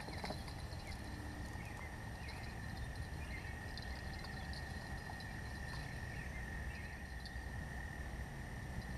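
Quiet outdoor ambience: one steady high-pitched drone over a constant low rumble, with a few faint chirps.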